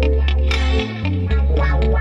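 Instrumental hip-hop music: a plucked guitar over a deep bass line, with percussion hits.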